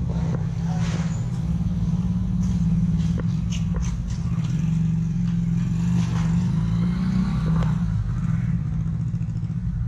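Street traffic: motor vehicles running close by, under a steady low rumble, with faint scattered clicks and distant voices.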